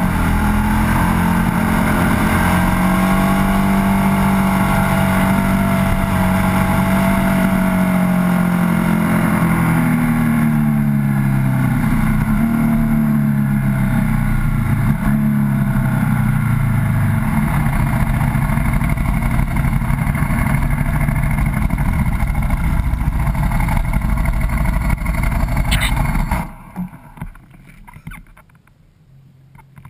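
Ducati 1098S's L-twin engine running on the move, its pitch rising and falling with throttle through the bends, with wind rushing past. About 26 seconds in the sound drops away abruptly, with the bike stopped.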